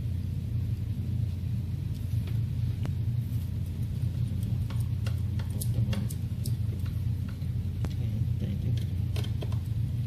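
Steady low rumble with scattered light clicks and ticks, most of them in the second half, from a hand screwdriver turning screws into a door lock's mortise body and the metal lock parts being handled.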